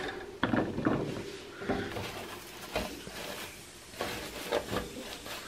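A hand rustling and spreading wood shavings in a plastic cage tray, with scattered light knocks and clicks from the plastic and wire of the cage.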